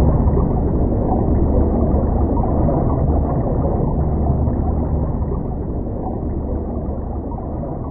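Underwater ambience: a steady, muffled low rumble of water with a faint gurgle, gradually fading out.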